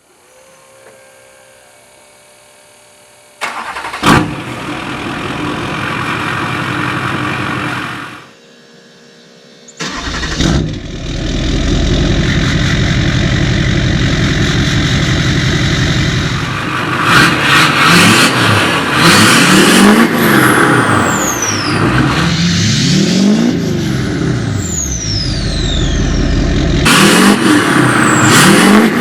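2005 Duramax LLY 6.6-litre V8 turbo-diesel cold-starting through a 5-inch axle-dump exhaust, going quiet briefly, then starting again and idling. From about halfway on it is revved several times, each rev rising and falling, with a loud turbo whistle falling away after the revs.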